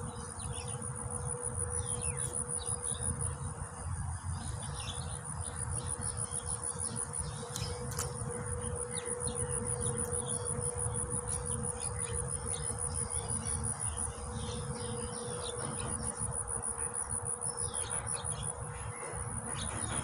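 Insects trilling without a break, a high, rapidly pulsing buzz, over a steady low hum and a low rushing background noise, with a few short chirps scattered through.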